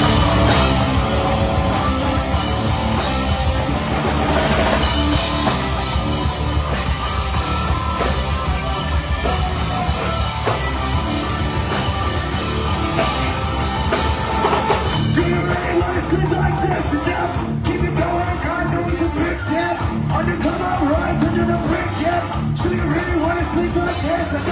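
A rock band playing live and loud, with drums and heavy guitars. From about two-thirds of the way in, a singer's voice comes in over the band.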